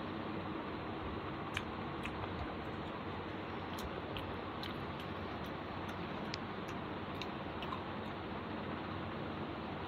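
Someone chewing food, with irregular small mouth clicks and smacks over a steady background hiss.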